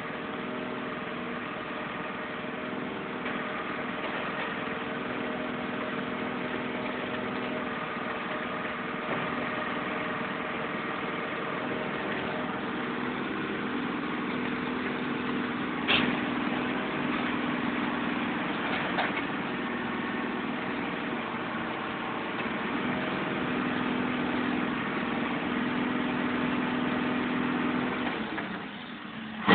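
Heavy truck engine idling steadily, with one sharp knock about halfway through and a fainter one a few seconds later.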